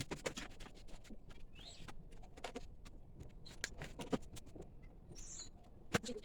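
Irregular light clicks and taps of small parts being handled, with a louder click near the end.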